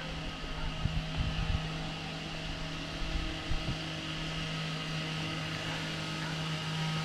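Steady mechanical hum of a running motor at constant speed, holding one even low tone, with a few soft knocks about one and three and a half seconds in.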